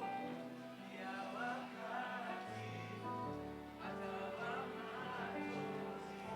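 Gospel worship music between sung lines: held chords with a low bass note coming in partway through, and a little singing.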